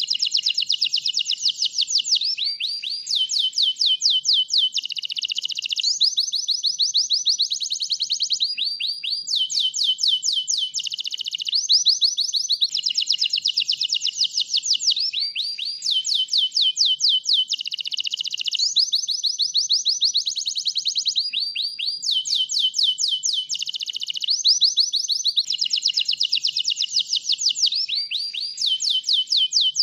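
White canary in full song: an unbroken string of fast trills of repeated notes, each run lasting a second or two before it switches to a new note with hardly a pause.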